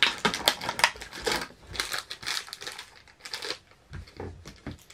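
Crinkling and rustling of cardboard and packaging as a cardboard advent calendar door is pushed open and a small wrapped item is pulled out. Irregular crackling, busiest at first and thinning out toward the end.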